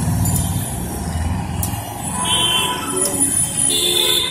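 Street traffic: a motor vehicle engine running close by, its low hum strongest in the first second, with passing traffic and a few short pitched sounds about two seconds in and near the end.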